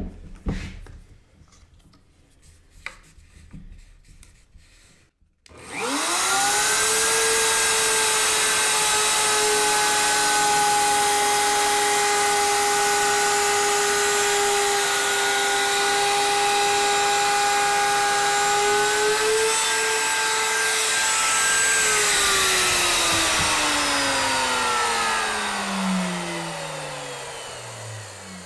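Bosch router fitted with a bearing-guided rabbeting bit. After a few handling clicks it is switched on about five seconds in and quickly comes up to speed. It runs at a steady high whine while cutting a rabbet along a board edge, then is switched off and spins down with a falling pitch over the last six seconds or so.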